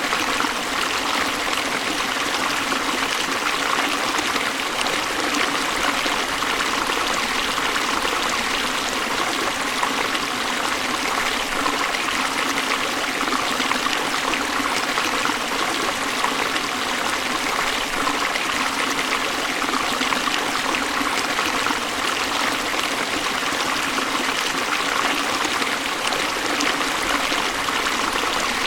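River water rushing and splashing steadily over rocks, an even hiss of moving water with no deep rumble.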